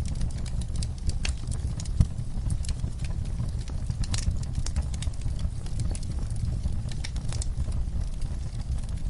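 Wood fire in a fireplace crackling: irregular sharp pops and snaps over a low, steady rumble of the flames, with one louder pop about two seconds in.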